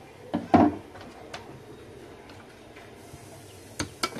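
Short plastic clicks and knocks as an air conditioner's PCB is worked loose from its black plastic housing by hand. The loudest knock comes about half a second in, with a few lighter clicks after it and two more near the end.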